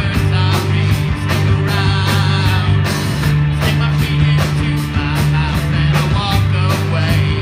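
Live rock band playing: a man singing over electric guitar, bass guitar and a steady drum beat.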